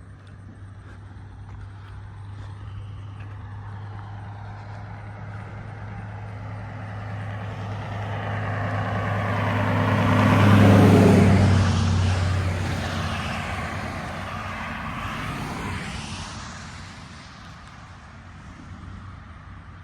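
A road vehicle approaching and driving past, its engine and tyre noise building to loudest a little past halfway, then dropping in pitch and fading away.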